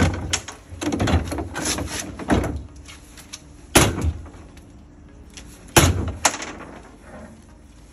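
Irregular heavy bangs and knocks on the sheet-metal body of a Toyota FJ45 as its truck bed is worked loose, with two loudest strikes about four and six seconds in.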